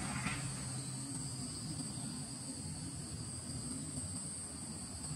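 A chorus of tropical insects drones steadily at two high pitches, with a low rumble underneath.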